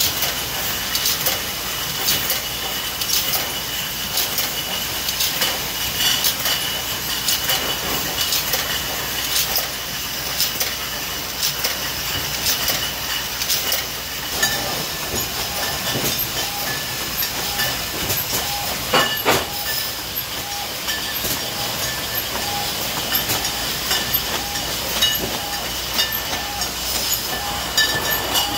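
Wine bottling line running, with steady machine clatter and hiss and frequent clinks and clicks of glass bottles moving through the filler, conveyor and labeler. From about halfway, a short tone repeats about once a second.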